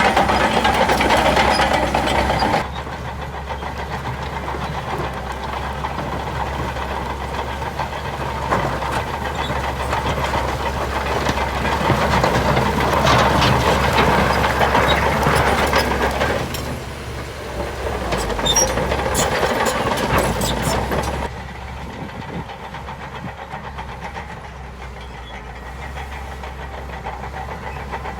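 Heavy diesel engine of earthmoving machinery running, its level jumping abruptly a few times. Several sharp metallic knocks come in the later middle part.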